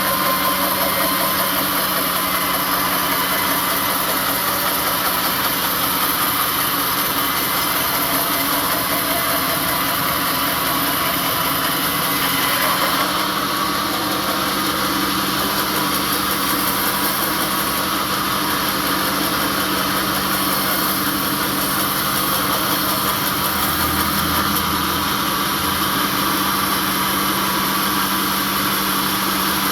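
A sawmill's engine running steadily with an even hum, no change in speed.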